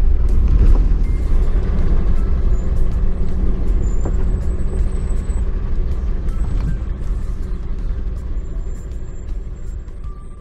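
Deep, steady rumble of a truck's engine and tyres heard while driving slowly, fading out toward the end.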